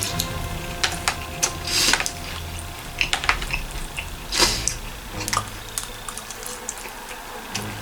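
Close-up eating sounds: someone chewing and working through battered orange chicken, with scattered sharp clicks and two short hissing rushes, about two and four and a half seconds in.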